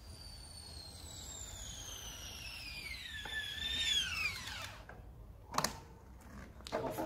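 Road bike's rear freehub buzzing as it coasts, the whine falling steadily in pitch as the bike slows and dropping away about five seconds in as it comes to a stop. Two short sharp clicks follow as the rider gets off.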